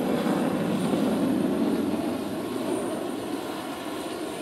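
Su-30MKM fighter's twin AL-31FP turbofan engines, heard as jet noise from an aircraft passing overhead. The noise is loudest in the first two seconds, then fades as the jet flies away.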